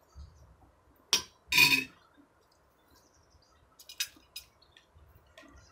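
Spoons clinking against plates and a metal serving tray during a meal. There is a sharp clink about a second in, a louder clatter just after it, and a few lighter clicks around four seconds in.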